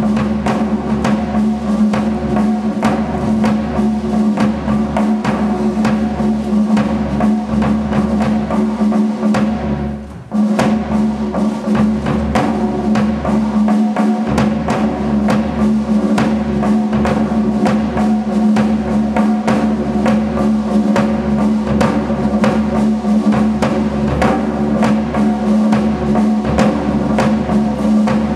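Percussion-driven music: a fast drum beat over a steady low drone. It drops out briefly about ten seconds in, then comes back.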